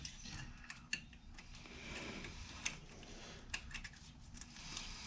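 Faint, scattered light clicks and taps at irregular moments, typical of hands working with small parts and tools, over a low background hum.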